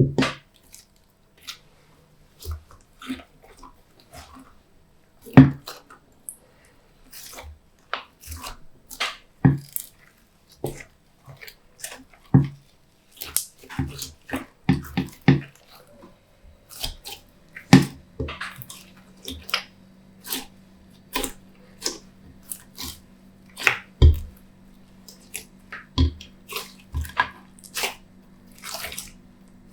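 Glossy slime being mixed by hand, giving irregular wet clicks and pops, a few of them much louder than the rest. A faint steady hum comes in a little past the middle.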